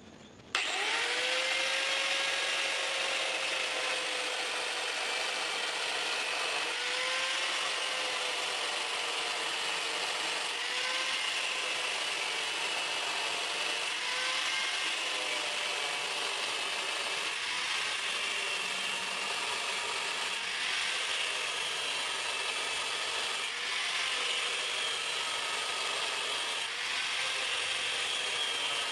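Angle grinder with a thin cut-off disc cutting a row of notches into the steel spine of a knife blade. It starts suddenly about half a second in and runs steadily, its whine wavering in pitch as the disc bites.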